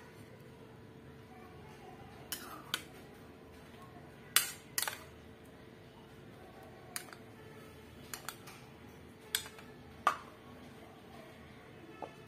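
A spoon clinking and tapping against a bowl as egg mixture with sliced onion and green chilli is scooped out and spread on rolled dough: about ten sharp, irregular clicks, a few in quick pairs, over a faint steady hum.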